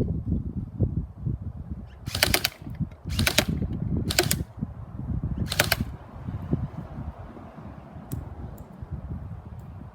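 Battery-powered HK416 airsoft electric rifle firing four short full-auto bursts of about half a second each, its gearbox cycling in a fast rattle of clicks.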